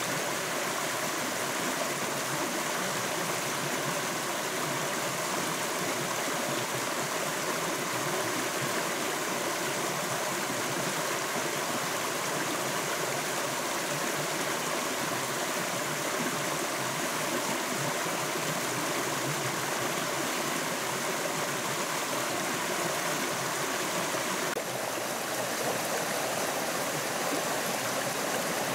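Rocky forest stream rushing steadily over stones in small cascades, a continuous even wash of water; its tone shifts a little near the end.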